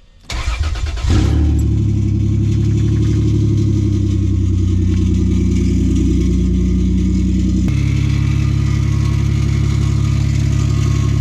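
Lexus GS300 engine cranked by the starter, catching about a second in and then idling steadily, its note stepping down a little about two-thirds of the way through. With new rod bearings it no longer knocks, but it runs with a slight metallic scraping that the owner traces to the flywheel rubbing against the block.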